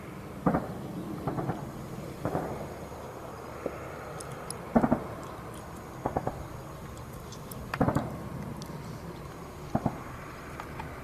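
Distant anti-aircraft gunfire: short bursts of one to three sharp reports every second or two, over a steady low background rumble.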